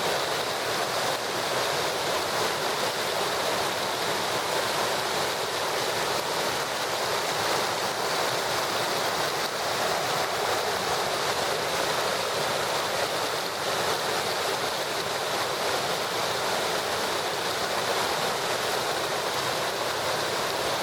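Waterfall: a steady rush of falling water that does not let up.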